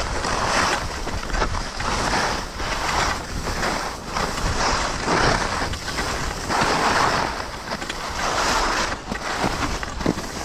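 Skiing fast downhill: wind rushing over a chest-mounted GoPro microphone and skis scraping on snow, the noise swelling and fading with each turn.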